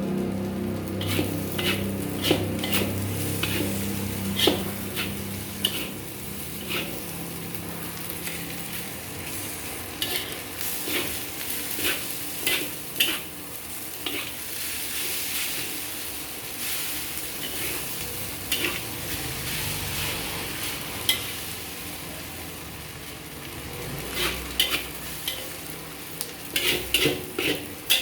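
Fried rice sizzling in a hot pan while a metal spatula scrapes and knocks against it, with clusters of quick strokes in the middle and near the end. A low hum fades away over the first few seconds.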